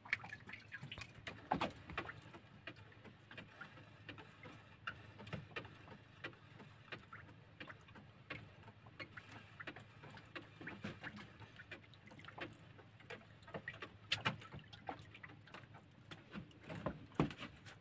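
Faint, irregular knocks and taps of fishing gear and hands against the wooden hull of an outrigger boat as a handline is worked, with a few sharper knocks about a second and a half in and near the end.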